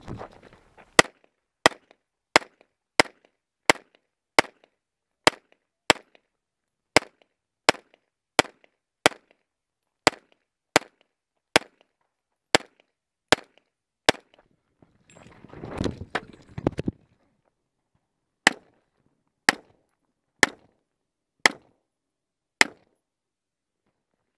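Semi-automatic pistol firing single shots close to the microphone: a long, even string of about twenty shots a little under a second apart, then a short stretch of scuffling noise, then six more shots about a second apart.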